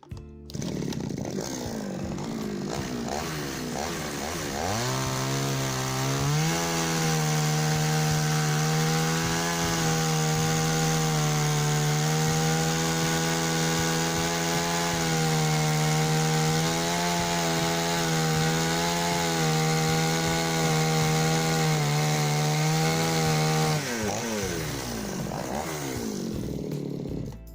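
Goodluck GL 4500M two-stroke chainsaw revving up to full throttle and cutting through a log about 15 cm thick with a dulled chain. The engine holds high revs for about eighteen seconds, its pitch dipping slightly under load, then winds down and stops near the end.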